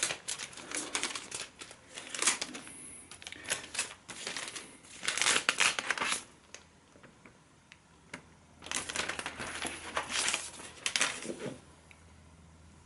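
Cardboard box inserts and packaging rustling and scraping in several bursts, with a quieter gap in the middle, as the keyboard and mouse are handled and lifted out of the box.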